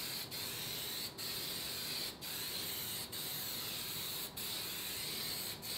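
Aerosol can of gloss black appliance epoxy spraying in a steady hiss, broken by a short pause about once a second.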